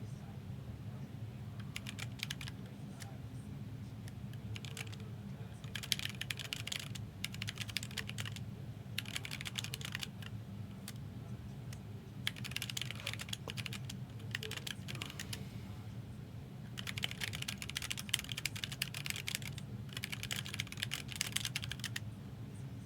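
Computer keyboard typing in several short bursts of rapid key clicks with pauses between them.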